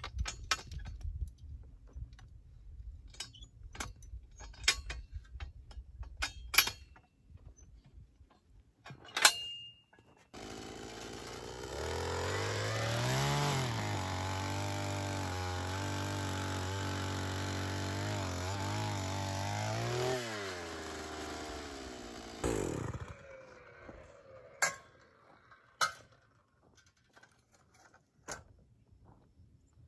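Gas-powered one-man earth auger: the small engine catches about ten seconds in, revs up, runs steadily for several seconds, then slows and shuts off. Before it, scattered clinks and scrapes of hand tools in dry dirt.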